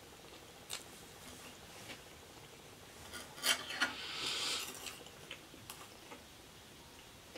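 Paper napkin rubbed and crumpled between the fingers: two sharp crinkles about halfway through, then a short rustle. A few light clicks follow as a plastic fork is picked up off the tray.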